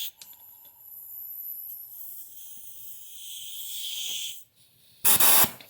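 Compressed-air blow gun hissing as air is pressed into a water-filled cylinder head port to check the valve seats for leaks. The hiss grows louder for about four seconds and stops, then a short, loud blast of air comes about five seconds in.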